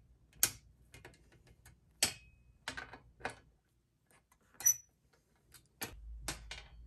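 Sharp, irregular clicks and taps of a small hand tool and fingers on a stainless-steel oil baffle tray, about eight spread unevenly over several seconds.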